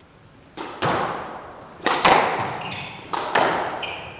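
Squash ball struck by rackets and smacking off the court walls during a rally: about seven sharp, echoing impacts, mostly in quick pairs, with brief high squeaks near the end.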